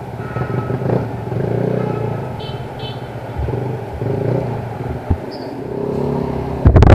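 Yamaha NMAX 155 scooter's single-cylinder engine running through an Akrapovič full exhaust while riding, its note shifting with the throttle. A loud rushing burst comes just before the end.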